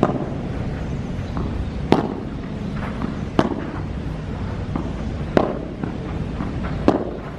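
Padel ball being hit back and forth with padel rackets in a rally: five sharp pops about a second and a half apart, with fainter ball bounces between them, over a steady low rumble.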